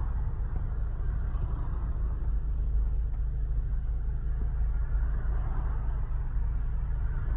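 Steady low rumble inside a car's cabin as it moves slowly in traffic: engine and road noise.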